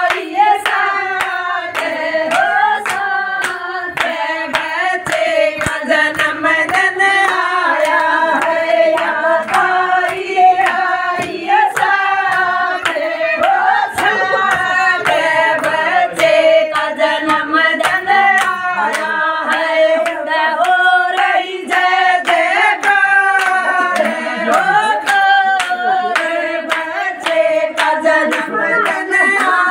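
A group of women singing a Haryanvi devotional bhajan together, with steady hand-clapping in time, about two claps a second.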